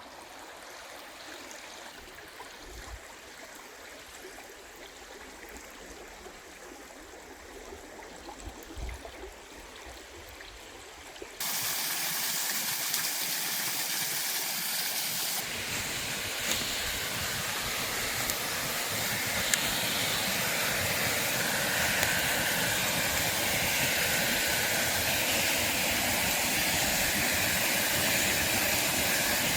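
Waterfall rushing water: a steady noise, fainter at first with a couple of low thumps, that jumps abruptly louder about eleven seconds in and grows fuller again from about fifteen seconds.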